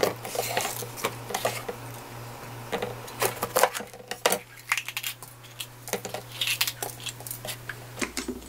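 Chef's knife cutting a green bell pepper on a plastic cutting board: irregular, sharp knife taps and clacks against the board.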